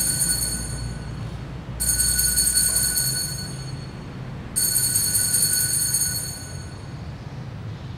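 Altar bell rung three times, about two and a half seconds apart, each ring high and clear and fading over about two seconds: the signal for the elevation of the chalice at the consecration of the Mass.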